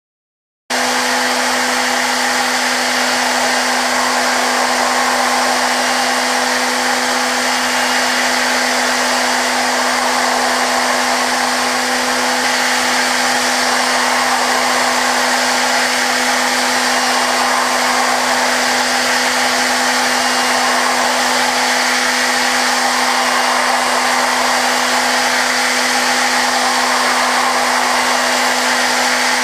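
Okuma GENOS M560-V vertical machining centre's 15K Big Plus spindle running steadily while a small end mill takes a Z-level finishing pass in hardened S7 tool steel (56 HRC). A constant high hum under a dense hiss starts suddenly about a second in and holds steady.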